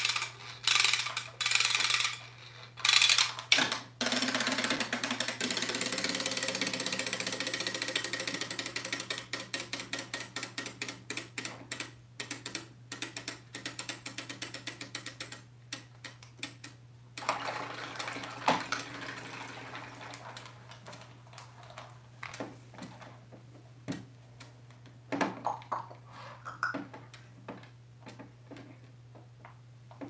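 Clockwork wind-up bath toys whirring with rapid ticking as their spring motors run down, paddling them through a basin of water. A long run fades over about thirteen seconds, a second shorter whirr follows, and then there are scattered clicks as a toy is handled and wound.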